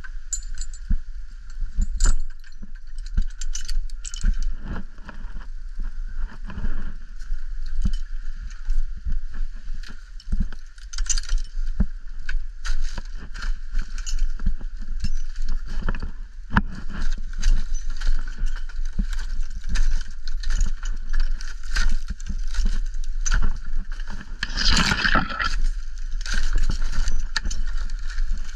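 Climbing gear jangling and clicking, with rope and gloves scraping and knocking against a palm trunk in irregular bursts; a louder stretch of scraping comes near the end. Wind rumbles on the microphone.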